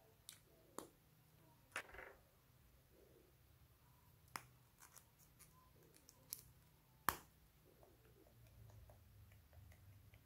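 Small plastic caps and a plastic macaron-shaped case handled and pried at, giving scattered sharp plastic clicks against near silence, the loudest click a little after seven seconds in.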